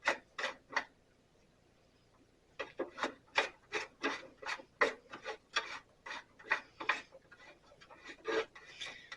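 Blade-tension adjuster on a Sears Craftsman 12-inch bandsaw being cranked by hand to bring a new blade up to tension. It makes short repeated strokes, about two to three a second, with a pause of about a second and a half near the start.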